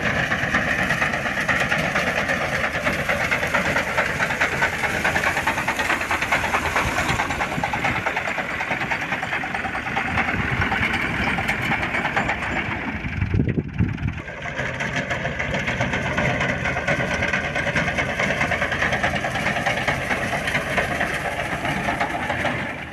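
Al-Ghazi tractor's diesel engine running steadily at harvest work with a reaper binder, a dense, even mechanical chatter, with a brief lower surge about halfway through.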